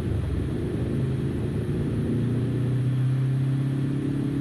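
Motorcycle engine running at a steady cruise, its hum settling onto an even pitch about halfway through, over a low rumble of wind and road.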